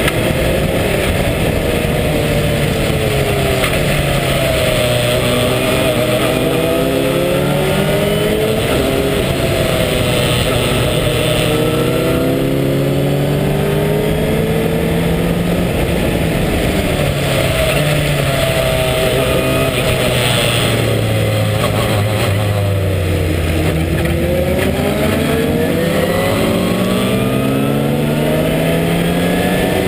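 A March 83S Sports 2000 race car's Ford 2.0-litre four-cylinder engine at racing speed, heard from the open cockpit. Its pitch climbs through the gears and drops under braking and downshifts, twice falling low before winding back up, over a steady rush of wind.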